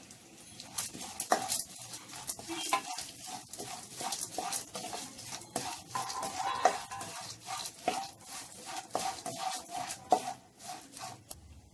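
A perforated steel skimmer scraping and clinking against a stainless steel kadai as roasted gram and peanuts are stirred and tossed in hot oil with curry leaves, dried chillies and garlic: a quick, uneven run of scrapes and clicks.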